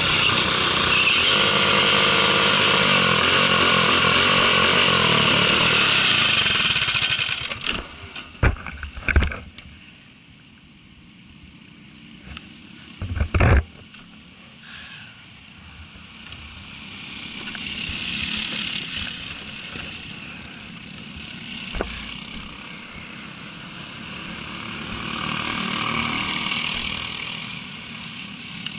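Briggs & Stratton LO206 four-stroke single-cylinder kart engine running loud at speed, its pitch falling as it slows before it goes quiet about seven seconds in. A few sharp thumps follow, then two soft swells of rushing noise.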